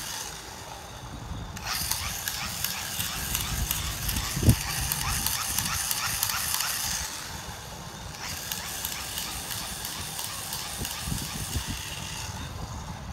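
Bubble machine running with a hissing whir and quick, repeated clicking, in two spells with a short lull between them. A single thump comes about four and a half seconds in.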